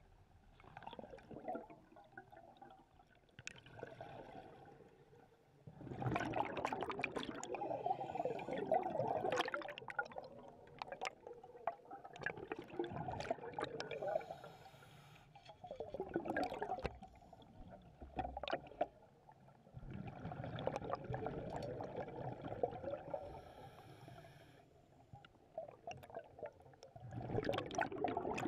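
Underwater water noise around a diver: bursts of bubbling and rushing water every few seconds, with scattered sharp clicks.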